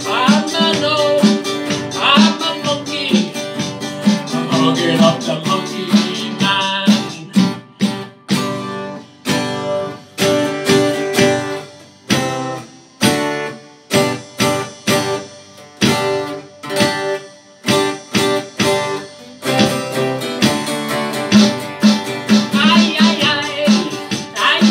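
Live ska song on an acoustic guitar strummed in a steady ska rhythm, with an electronic drum kit. A man sings for the first several seconds; the guitar and drums then carry an instrumental stretch, and the singing comes back near the end.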